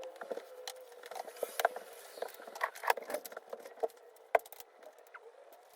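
Irregular light clicks and clacks from a custom mechanical keyboard and its parts being handled, with a few sharper knocks around the middle.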